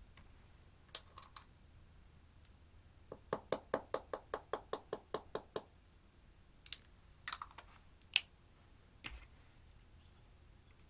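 Small hard taps and clicks: a short cluster, then a quick even run of about a dozen taps at roughly five a second, then a few scattered clicks, the loudest one near the end.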